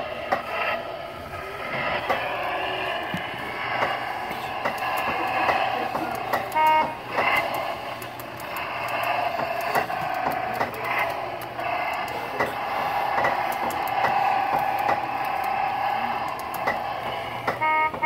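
Jolly Roger bulldozer kiddie ride's horn button being pressed, giving a short electronic horn beep twice, about eleven seconds apart, with clicking from the buttons over the ride's running sounds.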